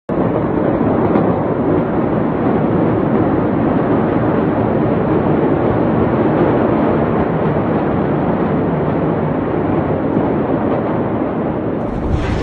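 A loud, steady rushing noise with no distinct bangs, and a change in its character near the end.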